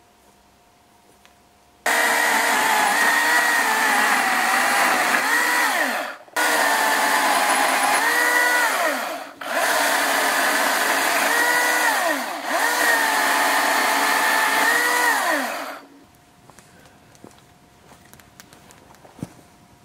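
Cordless electric chainsaw running and cutting dead branches. Its whine sags in pitch as the chain bites into each cut, stops briefly twice when the trigger is released, and shuts off about four seconds before the end.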